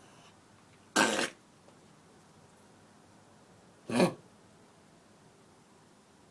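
Dog coughing from kennel cough: two short coughs about three seconds apart.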